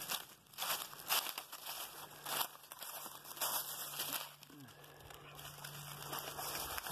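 Footsteps crunching through dry fallen leaves, a few steps in the first couple of seconds, then softer rustling of the leaves.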